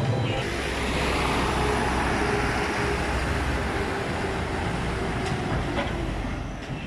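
Street traffic noise: a motor vehicle's engine and tyres passing close, swelling about a second in and slowly fading.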